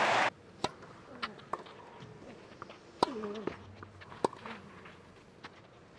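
Tennis rally on a clay court: sharp racket-on-ball strikes at irregular intervals, with a player's short grunt on the stroke about three seconds in. Crowd noise cuts off abruptly at the start.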